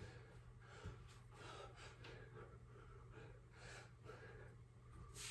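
A man's heavy breathing under exertion: faint, short, sharp exhalations about once a second.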